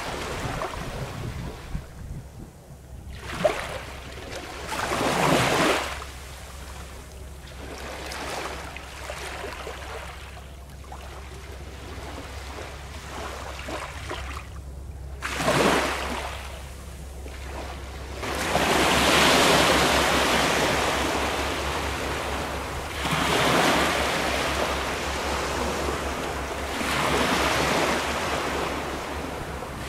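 Small waves washing in on the shore, each one swelling and fading away, the longest surges in the second half. A low rumble of wind on the microphone runs under them.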